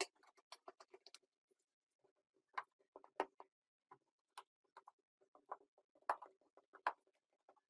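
Faint, irregular clicks and taps of a screwdriver working the screws out of an upturned spin dryer, with a few sharper knocks.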